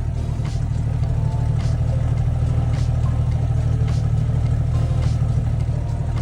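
Vehicle engine idling as a steady low rumble, with a faint tick about once a second.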